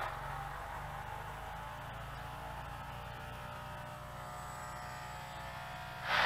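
Faint, steady whine of a micro RC plane's tiny coreless electric motors and propellers in flight, wavering slightly in pitch, over a steady low hum.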